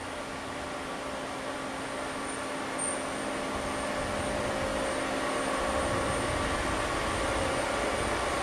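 Unify UNION-50A thread rolling machine running idle: a steady mechanical hum with a few faint steady tones, growing slowly louder.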